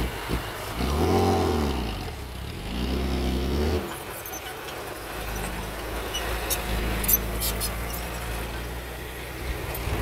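Loaded dump truck's diesel engine revving up and back down twice, then running steadily at low revs as the truck pulls away over rough dirt. There are a few light rattles or knocks about 7 seconds in.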